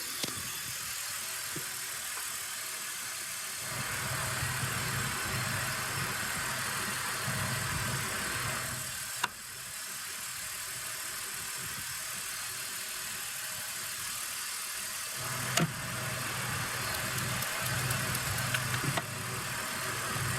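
BMW E46 engine idling with the air-conditioning compressor running. A heavier running hum cuts in and out twice, with clicks as it stops and restarts, typical of the AC compressor clutch cycling.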